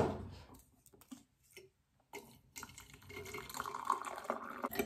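A knock at the start, then after a short quiet, water poured from an electric kettle into a glass mug, a steady splashing pour that begins a little past halfway.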